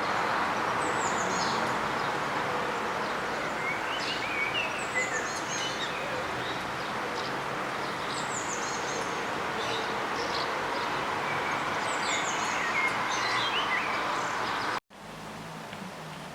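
Birds chirping in short descending runs every few seconds over a steady outdoor hiss. Near the end it cuts off suddenly to a quieter, even hiss.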